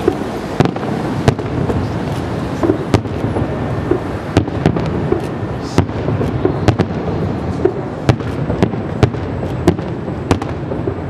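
Aerial firework shells bursting in quick, irregular succession: sharp bangs more than once a second over a continuous low rumble of booms and echoes.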